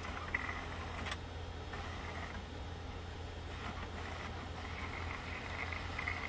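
HP OfficeJet Pro 8710 inkjet printer running a print job for its print quality report: a steady low hum from its mechanism with a few faint clicks.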